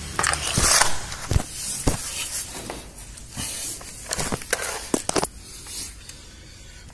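Handling noise from a handheld camera being moved about: irregular knocks, scrapes and rustles, with several sharp clicks in the first two seconds and another cluster about four to five seconds in.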